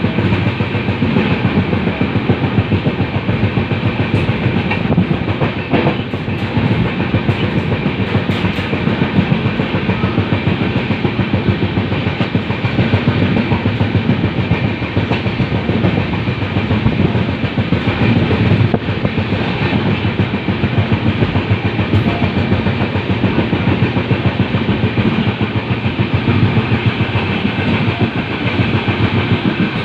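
Indian Railways LHB passenger coach running at speed, its wheels rumbling and clattering steadily over the rails.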